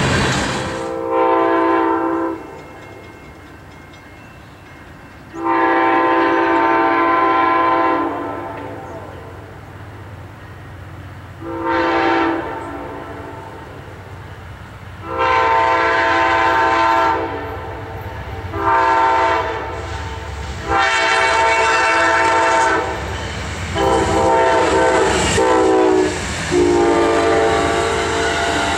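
An approaching Amtrak passenger train, led by P42DC locomotives, sounds its multi-chime horn in a series of long and short blasts, eight in all, with the rumble of its wheels on the rails beneath them. At the start, the rolling noise of a passing freight train's tank cars fades away.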